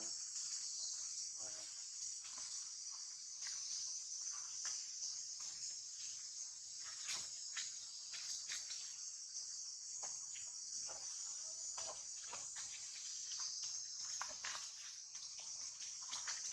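Steady high-pitched chorus of insects, crickets or cicadas, with scattered light clicks and rustles.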